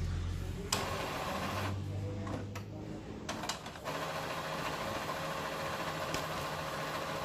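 Epson L6270 ink-tank printer running its initial ink charge: the mechanism whirs steadily, with a few sharp clicks along the way.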